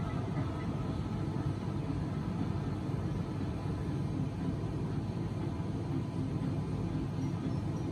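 Steady low rumbling background noise at an even level, with no distinct events and no clear music.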